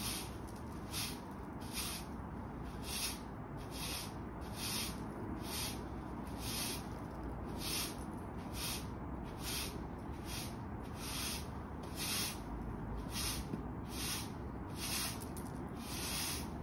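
Hard-bristle broom sweeping dirt across brick paving in repeated strokes, a scratchy swish a little more often than once a second, some strokes longer and some shorter.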